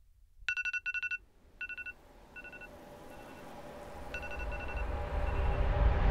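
Mobile phone ringing with a trilling electronic ring in short paired bursts, which repeat more faintly like an echo. Under it a low drone swells steadily and builds into music near the end.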